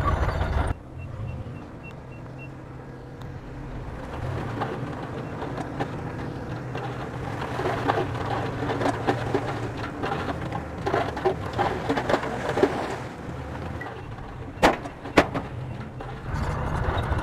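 Bulldozer diesel engine running at a low, even note, with rattling and clanking through the middle and two sharp metallic knocks near the end. The engine sound drops suddenly about a second in and comes back louder just before the end.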